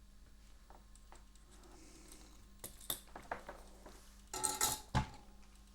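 Light clicks and taps of soldering tools being handled, with a sharper knock near the end.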